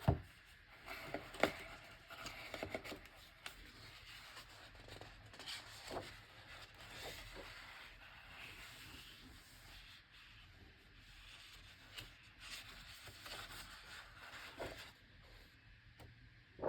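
Paper rustling and sliding as the large pages of an oversized hardcover art book are turned and handled, with a few soft taps scattered through.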